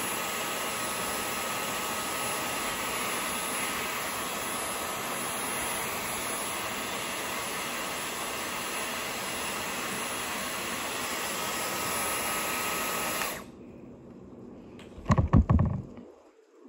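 Dyson Airwrap styler running: a steady rush of air with a thin high whine, switched off abruptly near the end. About a second and a half later comes a brief cluster of loud knocks and rubs, the loudest sound here.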